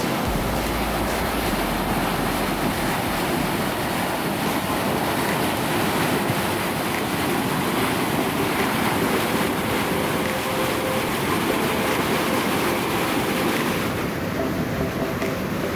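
Fast, turbulent white water rushing down a concrete-lined canal channel, a steady, unbroken rush.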